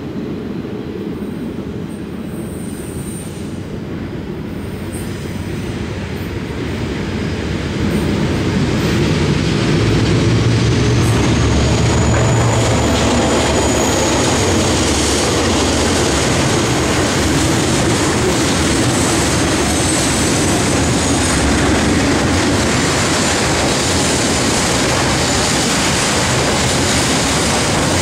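Diesel-electric freight locomotives (DFT 7064 and DXB 5108) approaching and passing close by, the engine rumble building over the first ten seconds and peaking as the locomotive goes past. The wagons then roll by in a steady rumble and rattle, with a high thin wheel squeal.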